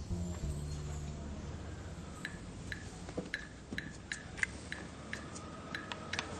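A low sustained tone dies away within the first second or two. Then come sharp, irregular clicks with a brief ring, about two a second.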